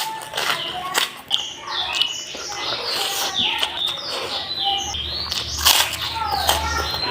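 Small birds chirping busily in many short, quick, falling calls, mixed with sharp crackly clicks like crunching on crackers.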